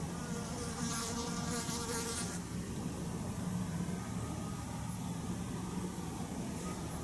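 A flying insect buzzing close by for about two seconds near the start, then stopping, over a steady low hum.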